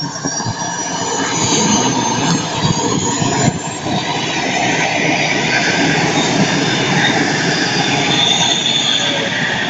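Small gas turbine of a radio-controlled model jet running: a steady, loud rush with a high whine on top, growing a little louder over the first couple of seconds.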